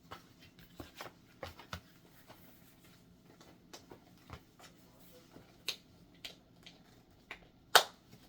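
Gear being handled and moved about: a scattered series of light clicks and taps, with one sharper knock near the end.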